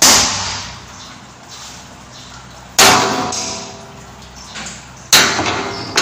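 Three heavy hammer blows on a wooden block set on the metal top of an A.O. Smith water boiler tank, about two and a half seconds apart, the tank ringing briefly after each strike.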